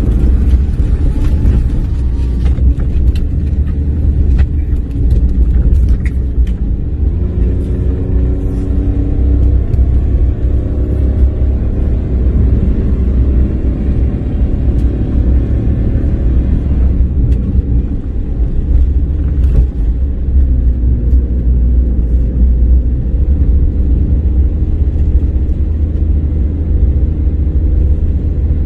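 Car engine and road rumble heard inside the cabin as the car drives slowly over a rough, narrow road. Scattered knocks and rattles come from the rough surface in the first few seconds, and the engine note rises between about seven and seventeen seconds in.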